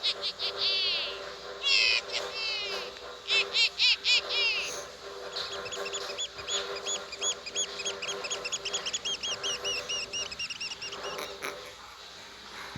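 Bird calls: three short bursts of rapid chirps that each sweep downward, followed by a long, even run of repeated high notes, about four a second, that stops near the end.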